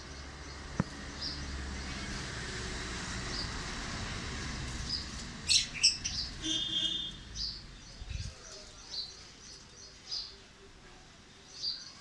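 Aviary green-cheeked conures giving short, high chirps about once a second, with a louder cluster of calls about halfway through. A low rumbling noise runs under the first half.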